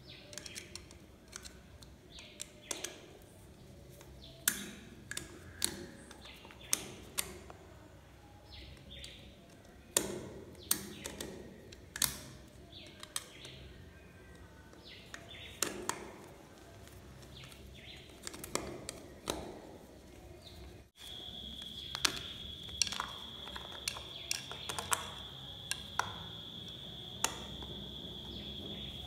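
A screwdriver and fingers click and tap irregularly against the metal screws and plastic body of a wall socket outlet, making light, sharp clicks. About two-thirds of the way through, a steady high-pitched cricket trill starts and continues under the clicks.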